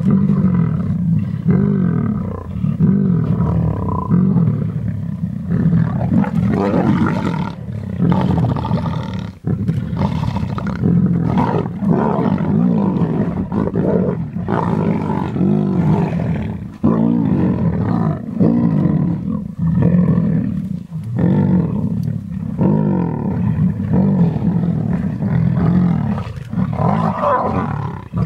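Several lions growling almost without pause, low overlapping calls swelling and falling about once a second: a pride squabbling over a fresh kill as it feeds.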